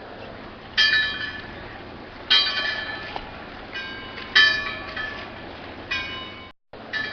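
Buoy bell clanging at uneven intervals as its clappers swing, roughly every one to two seconds, each strike ringing several tones that fade over about a second. A steady hiss lies under it, and the sound drops out for an instant near the end.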